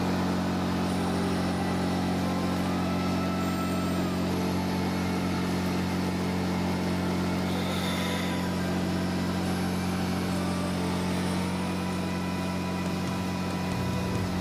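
Small portable generator engine running at a steady speed, a constant hum with a low drone.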